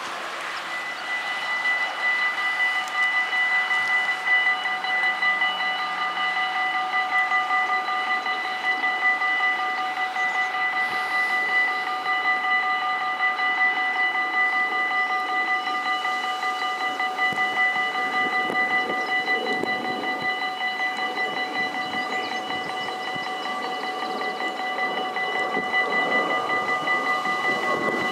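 Electric warning bells of a Dutch automatic level crossing ringing continuously in rapid strokes at a steady pitch, starting about a second in: the crossing is closing for an approaching train while the barriers come down.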